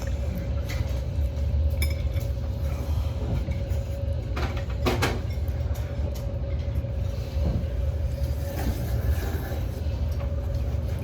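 A steady low hum, with a faint steady tone above it, and a few short clicks and a brief louder noise about four and a half seconds in.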